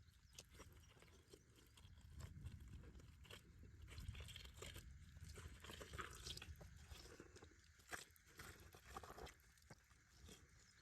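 Faint, irregular crunching and clicking of stones and gravel being handled or stepped on, over a low rumble.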